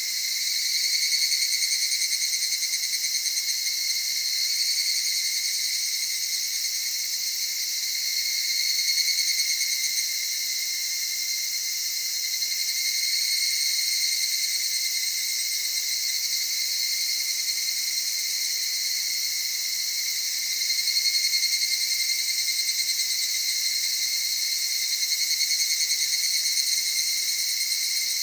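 A chorus of evening cicadas (higurashi) calling: a continuous high ringing trill that swells louder and eases back several times.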